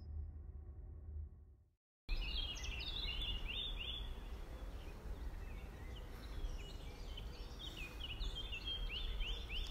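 An intro whoosh fades out, then, after a brief silence, outdoor ambience: songbirds singing many short, quick chirps in repeated phrases over a low, steady background rumble.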